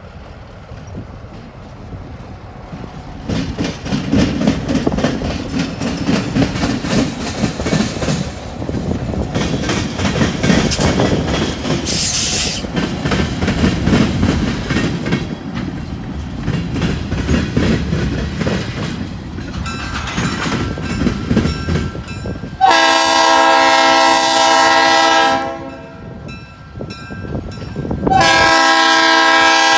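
Diesel locomotive pulling a train of tank cars past, its engine rumbling and the wheels clicking over the rail joints. About 23 seconds in the locomotive's air horn sounds one long blast of about three seconds, and a second long blast starts near the end.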